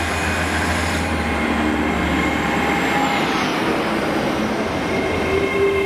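Great Western Railway Class 800 intercity train moving along the platform: a steady rumble of wheels and running gear, with faint whining tones over it.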